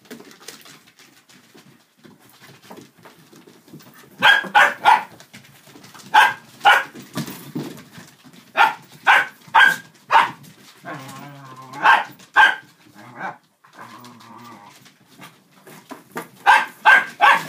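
Dachshunds barking in play, short sharp barks in quick clusters of two to four, starting about four seconds in and repeating every second or two.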